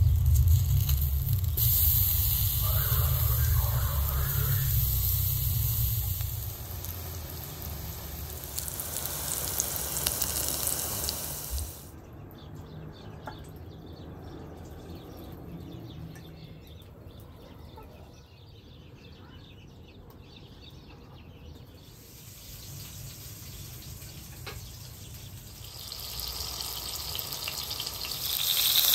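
Hot oil sizzling in a cast-iron frying pan as eggplant fries, dying down to a quieter stretch in the middle. The sizzle rises again near the end as sliced tomatoes fry in the oil.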